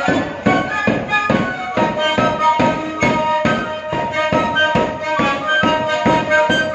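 Traditional Andean folk music for the dance: a held-note melody line over a steady drum beat of about two beats a second.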